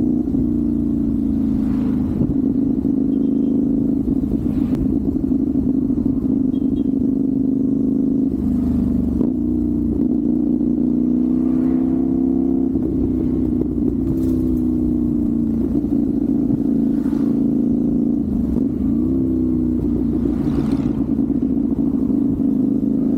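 CFMoto 450SR's parallel-twin engine running under way. Its pitch rises and falls several times as the rider changes gear, with throttle blips for rev-matched downshifts.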